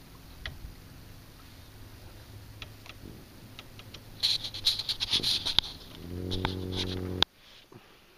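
Water lapping against a boat's hull, in irregular small splashes and ticks over a low steady hum. Near the end a steady low buzz lasts about a second and cuts off abruptly.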